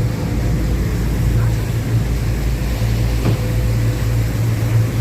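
River cruise boat's engine running with a steady low drone and a faint steady whine above it.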